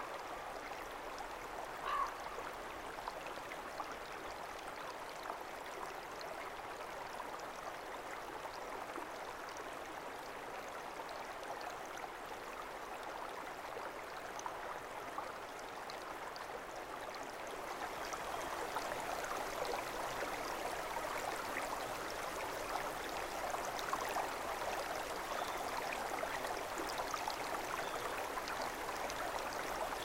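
Steady rushing of flowing water in a stream or river, growing louder about eighteen seconds in, with one short sharp sound about two seconds in.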